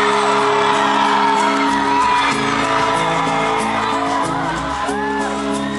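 A live band playing a song with sustained keyboard and guitar chords, heard from the audience in a large hall, with whoops from the crowd over it.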